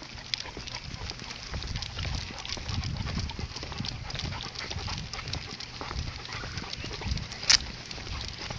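Footsteps and a large dog's paws on asphalt during a leash walk, with the dog's metal prong collar clinking and handling rumble from a hand-held camera. A sharp click about seven and a half seconds in is the loudest sound.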